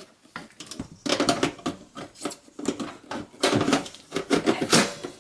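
Optical drive being handled and slid into the drive bay of a desktop computer case: an irregular run of plastic and sheet-metal clicks, knocks and rattles.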